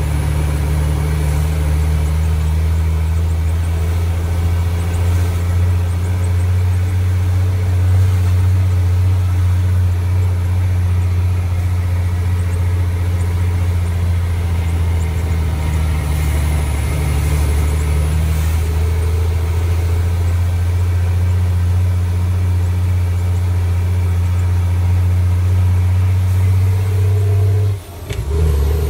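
Mack DM truck's diesel engine running steadily under way, heard from inside the cab as a deep, loud drone. Near the end it drops away for a moment during a gear change, then picks back up.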